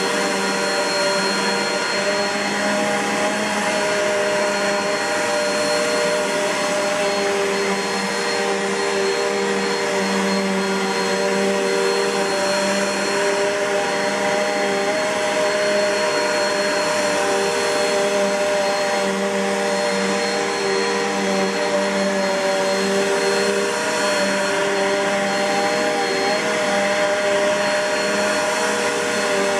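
2010 Bissell PowerForce (71Y7) bagged upright vacuum cleaner running steadily, its motor giving an even, unchanging whine.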